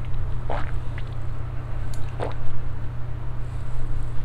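Mouth sounds of a man downing a shot of soju and chewing: a few faint wet clicks and smacks over a steady low hum, with a sharper click right at the end.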